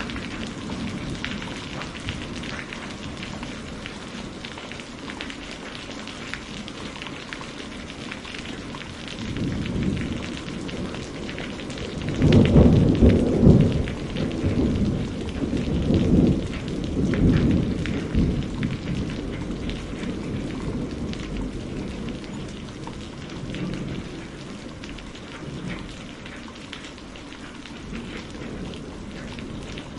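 Steady rain falling, with thunder rolling in a third of the way through: loudest near the middle in a few long rumbles, then fading back under the rain.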